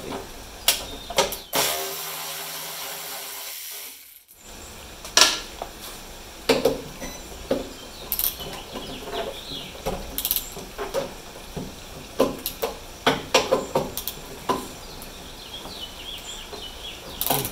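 Hand-held hex-bit driver working at the rear hatch-hinge screws of a 1973 Volkswagen bus: irregular clicks and knocks of the tool and bit against the metal screws, which strip. About two seconds in there is a steady hiss for a couple of seconds.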